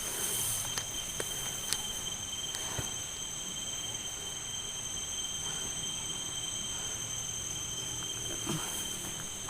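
Steady chorus of night insects: several high, unbroken trills layered together, with a few soft clicks scattered through.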